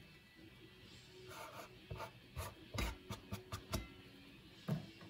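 Chopped dill being scraped off a plastic cutting board into a glass bowl: a run of light scrapes and knocks through the middle, and one more near the end.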